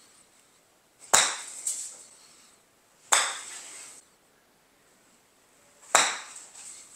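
Three crisp strikes of a sand wedge hitting golf balls off a hitting mat, about two to three seconds apart. Each strike has a short metallic ring and a fainter knock about half a second later.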